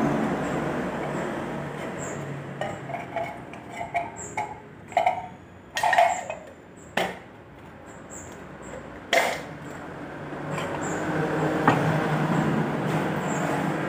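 Road traffic with trucks passing: one goes by at the start and another builds up near the end. In the quieter middle there are a run of short clinks and two sharp knocks.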